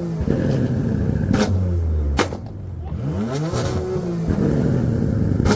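Sports car engine revved hard from idle: the revs climb and drop back about three seconds in, with sharp exhaust cracks and pops about a second and a half in, just after two seconds, and near the end.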